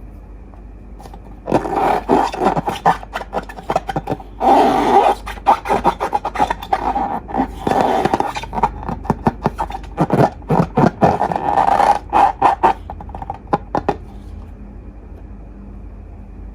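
Slime being mixed and squished by hand, with dense sticky clicking and crackling and some scraping, starting about a second and a half in and tapering off near the end.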